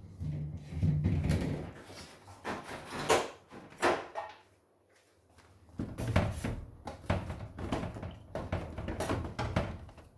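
Knocks and thuds of a refrigerator's door, drawers and shelves being handled and closed. There is a string of sharp clacks with a short lull about halfway through.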